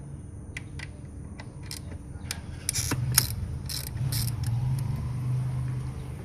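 Metal hand tools clicking, scraping and clattering on engine parts while parts are taken off to reach a fuel injector, with a low steady hum underneath that grows louder about halfway through.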